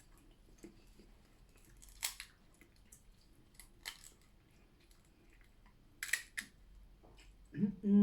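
Eating seafood boil: quiet chewing with a few sharp cracks and clicks, three louder than the rest, spread through. A short hum starts near the end.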